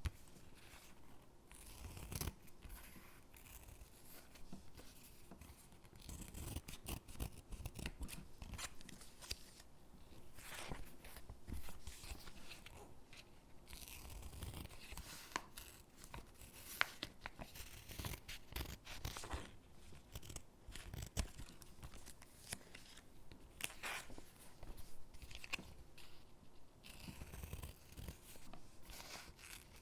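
Stickers peeled from their backing sheet and pressed onto paper gingerbread cutouts, with irregular crisp crackles, light taps and paper rustling.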